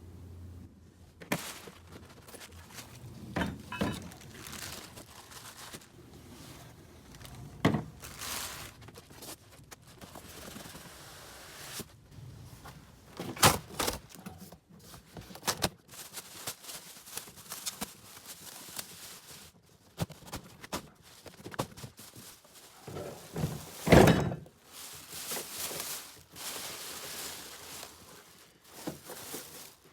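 Unpacking a boxed thickness planer: cardboard and packing material rustling and scraping, broken by irregular thunks and knocks as pieces are handled. The heaviest thunks come about halfway through and again about two thirds of the way in.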